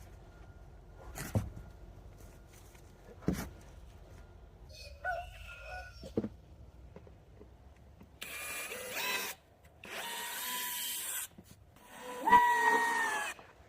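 Power drill running in three bursts of about a second each, the last dipping in pitch as it loads up, after a few sharp knocks.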